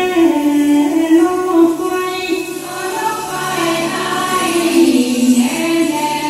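A group of female voices singing an Adi dance song together in long held notes that step and slide between pitches, with a dip to a lower note about five seconds in.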